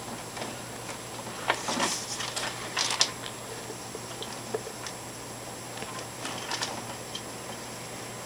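Heavy thunderstorm rain heard from indoors: a steady hiss with irregular taps and crackles, busiest about two to three seconds in.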